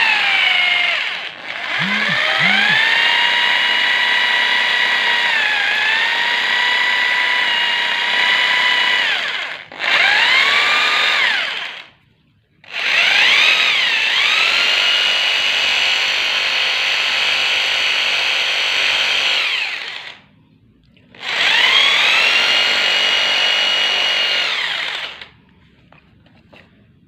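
Electric concrete drill running in repeated bursts of several seconds each, about five in all: its motor whine rises in pitch as it spins up after each start, holds steady with small dips under load, then cuts off. It stops for good near the end.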